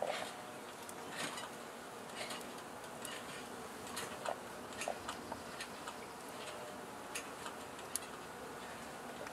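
Honeybees buzzing around an open hive, with scattered light clicks and knocks of wooden frames being set back into the hive box, the loudest right at the start.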